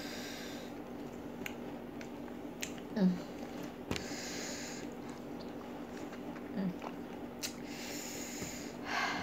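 Quiet handling sounds: greaseproof paper lining a basket of food rustling in two short stretches, with a few light clicks and two brief low hums from the person.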